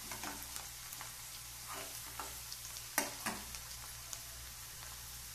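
Chopped onion sizzling in hot oil in a kadhai as it fries toward golden, stirred with a steel ladle that clinks and scrapes against the pan now and then, the sharpest clink about three seconds in.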